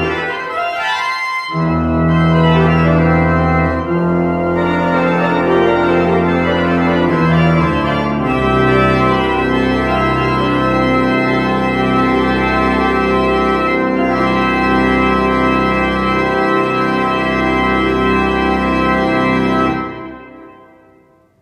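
Church organ playing the closing bars of a piece in full chords with deep pedal notes, ending on a long held final chord. The chord is released near the end and dies away in the church's reverberation.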